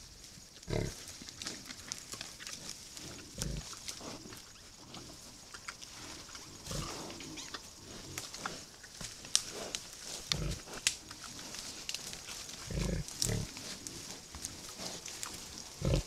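Wild boar giving a short low grunt every few seconds while foraging, with light rustling and small snaps of grass and twigs between the grunts.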